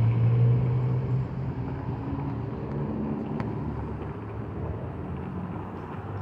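Road traffic: cars driving through a railroad crossing with a steady low engine and tyre hum, loudest in the first second and then easing off.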